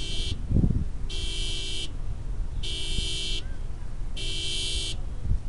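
Electronic beeper at a model rocket on the launch pad sounding a high-pitched beep about every one and a half seconds, each beep nearly a second long. Wind rumbles on the microphone, with a low thump about half a second in.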